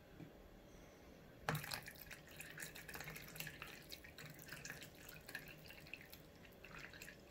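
Hot water pouring in a thin stream from a plastic pitcher into a shallow plastic tub of cold water, starting about a second and a half in: a faint, steady trickle and splash.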